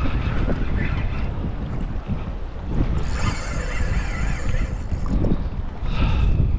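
Strong wind buffeting the microphone over choppy sea water, a heavy low rumble. About three seconds in, a higher whirring hiss rises over it for about two seconds.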